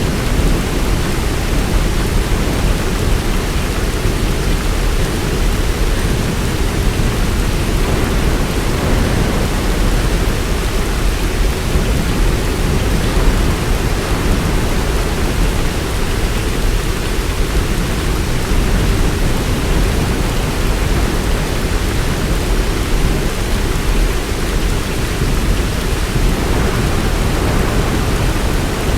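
Heavy rain falling in a steady, dense downpour, with a deep rumble underneath that may be thunder.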